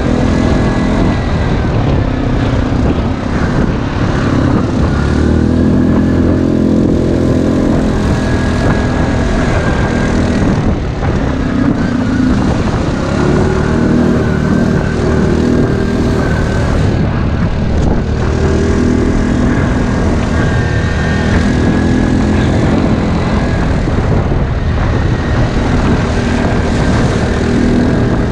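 ATV engines running hard off-road, revving up and dropping back again and again as the quads ride.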